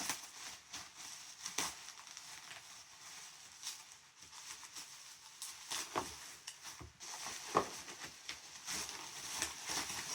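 Bubble wrap crinkling and crackling as it is cut open with scissors and pulled apart, in irregular rustles with a few sharper clicks.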